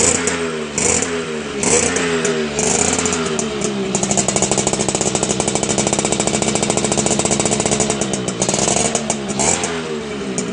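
Motorcycle with a stock engine and an aftermarket racing muffler, its throttle blipped in quick repeated revs, then held high and steady for about four seconds, then blipped again near the end.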